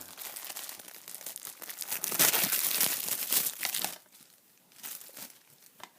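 Plastic shrink wrap on a DVD case being crinkled and torn off, loudest from about two to four seconds in, followed by a few brief rustles.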